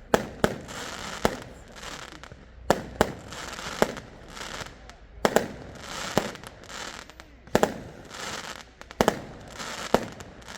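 Fireworks going off: a series of sharp bangs, about a dozen, often in quick pairs, each followed by a short crackling trail.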